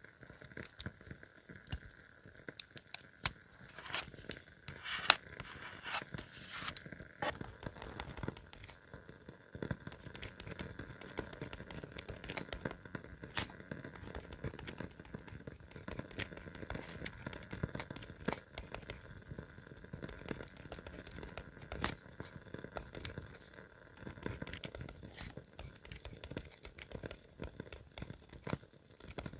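Paper being handled: rustling, crinkling and tearing, busiest a few seconds in, with many sharp clicks scattered throughout.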